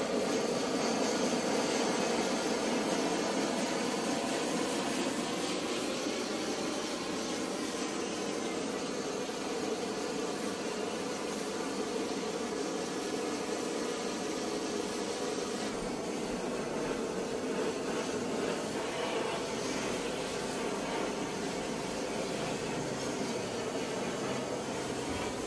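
Handheld canister-mounted gas torch flame burning with a steady rushing hiss, held on a motorcycle exhaust header pipe to heat it until the metal turns blue.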